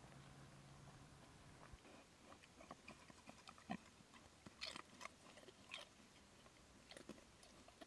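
Faint, scattered crackles and clicks of a pig rooting and chewing in dry leaf litter, with a few slightly louder snaps.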